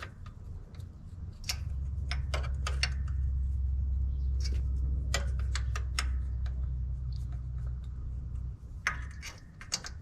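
Scattered light metal clicks and clinks of hand tools and parts being handled around an engine's thermostat housing, over a steady low rumble that sets in after a second or so and fades near the end.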